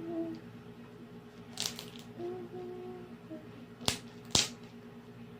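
Slime being kneaded by hand: a short squishing crunch about a second and a half in, then two sharp clicking pops close together about four seconds in.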